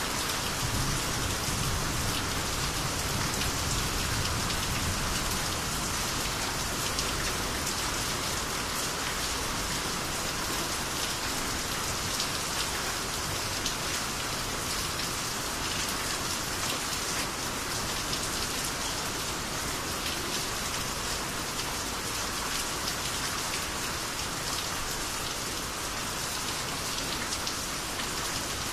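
Steady rain of the Japanese rainy season falling and pattering on surfaces, a continuous even hiss of drops, with a low rumble underneath in the first few seconds.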